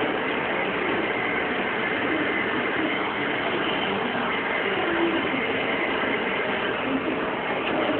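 Jenn Wei JW-42B3 CNC lathe running: a steady, even mechanical noise with a faint high whine.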